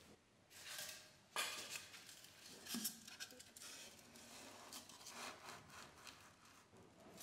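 Polystyrene foam block rubbing against the inside of a plastic bucket as gloved hands push it down into place, in a series of short scrapes, the loudest about a second and a half in.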